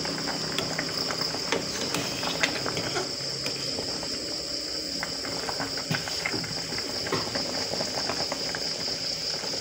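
Pot of fish tinola broth bubbling at a boil, with small clicks of a metal ladle against the pot, over a steady high-pitched trill.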